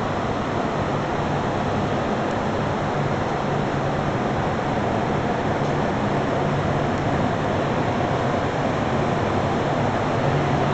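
Steady rushing air noise with a low hum, typical of the air-handling or cooling plant in a large storage warehouse.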